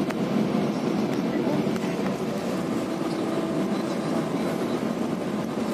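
Steady engine and road noise heard inside an intercity coach as it drives through a road tunnel.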